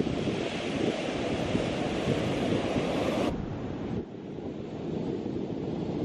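Pacific Ocean surf breaking and washing up a sand-and-pebble beach, with wind buffeting the microphone. About three seconds in the sound turns duller and a little quieter.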